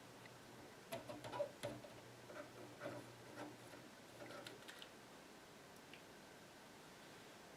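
Faint, irregular small clicks and taps of hand work on a cloth-covered wiring harness, with wires and small tools being handled, over a low steady hum. The clicks cluster in the middle of the clip and die away near the end.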